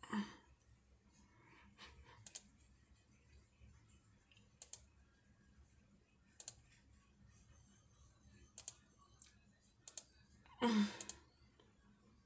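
Quiet room tone broken by sharp, isolated clicks, about one every two seconds, with a louder, longer noise near the end.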